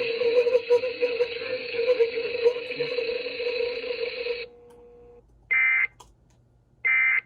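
NOAA Weather Radio broadcast audio: a hissing radio signal with a steady hum that cuts off about four and a half seconds in. Then come two short, shrill digital data bursts about a second and a half apart: the SAME End-of-Message codes that close the weekly EAS test.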